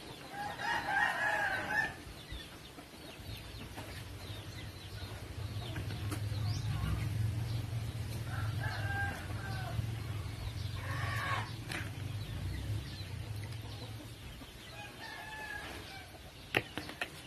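Chickens calling: one drawn-out call about a second in and shorter calls later, over a low hum that swells through the middle for about ten seconds.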